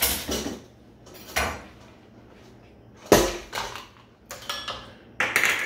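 Kitchenware being handled on a counter: a series of short knocks and clatters, the loudest knock about three seconds in.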